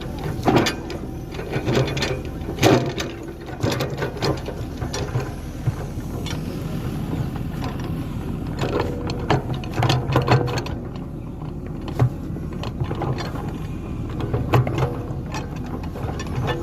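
Liugong 915E hydraulic excavator at work: its engine runs steadily under irregular clanks and knocks that come every second or so.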